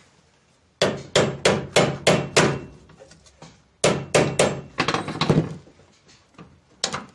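Hammer striking metal on a car's rear suspension during control arm installation. There are two quick runs of about six blows each, roughly three a second, and one or two more blows near the end.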